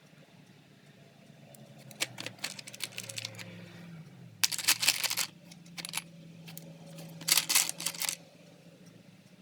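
Small hard objects clicking and rattling in three clusters of rapid clicks, loudest a little after four seconds in and again about seven seconds in, over a low steady hum.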